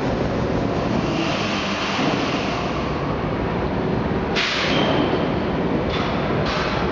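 Forge shop machinery running with a steady loud din, broken by a sharp hiss about four and a half seconds in and two shorter hisses near the end.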